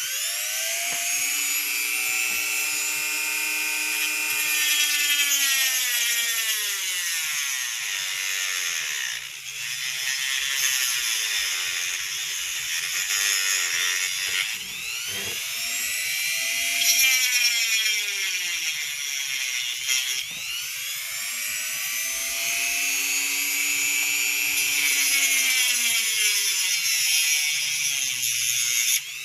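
Small high-speed electric rotary tool cutting down the ridges of nylon hose barb fittings; its motor pitch sags as it bites into the plastic and recovers, several times over.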